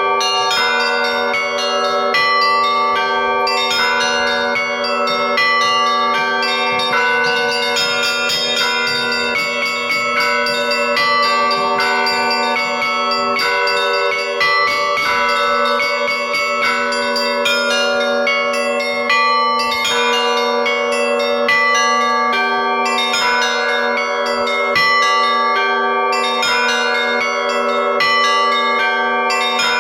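Russian church bells rung in a continuous, rapid peal (zvon): small bells struck many times a second over the lasting ring of larger bells, with a steady low bell tone beneath.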